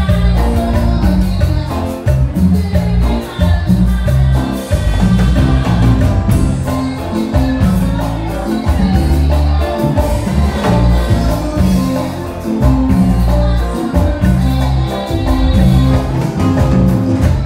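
A live cumbia band playing: electric bass, drum kit and keyboards, with a loud, prominent bass line.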